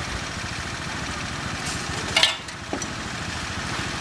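Hot oil sizzling steadily in a large wok of deep-frying battered food, with a sharp metallic clatter a little past halfway as steel tongs are set down on a wire draining basket.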